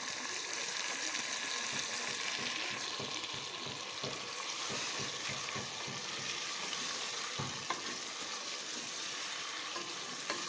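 Raw meat pieces sizzling in hot oil with onions in an aluminium pressure cooker, stirred with a wooden spoon while they brown (bhunai). The spoon clicks against the pot now and then.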